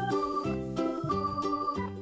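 Background music: an instrumental tune of pitched notes changing every fraction of a second.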